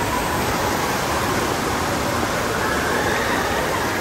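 Steady rush of water pouring and foaming down the open lanes of a water slide.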